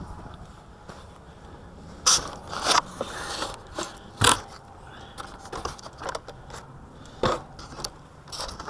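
Wind buffeting the microphone: a steady low rumble broken by irregular crackling, scraping gusts, the loudest about two and four seconds in.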